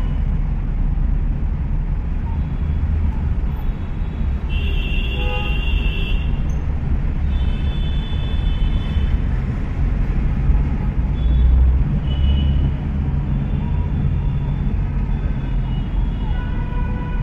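Road and traffic noise heard from inside a taxi crawling in heavy city traffic: a steady low rumble of the car's engine and the surrounding vehicles, with other vehicles' horns honking several times, the clearest a few seconds in.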